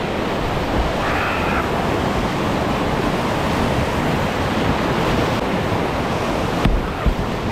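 Steady rush of whitewater churning around a kayak surfing a standing wave, with water splashing against the hull. A single knock near the end.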